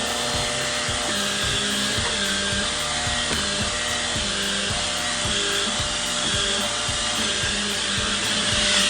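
Cordless stick vacuum cleaner running steadily with a constant motor hiss, under background music with a regular beat.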